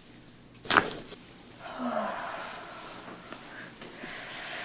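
A single sharp crack as a chiropractic adjustment thrust is delivered, followed by a long breathy sigh from the patient.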